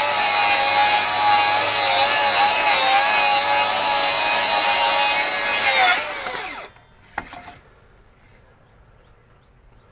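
FLEX FX2141R 24-volt brushless rear-handle circular saw with a 7-1/4-inch blade ripping lengthwise through pressure-treated 2x lumber, its motor pitch wavering a little under load. About six seconds in, the cut finishes and the blade spins down with a falling whine. A single click follows.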